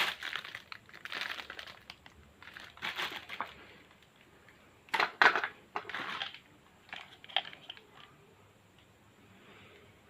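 Packaging being handled, crinkling and rustling in several irregular bursts with short pauses between them.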